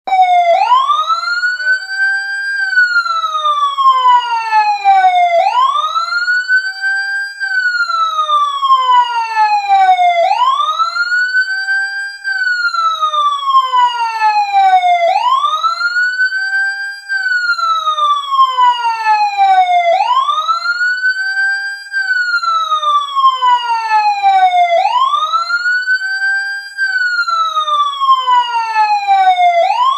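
Siren tone wailing up and down: each cycle rises quickly, holds for a moment at the top, then falls slowly, repeating about every five seconds.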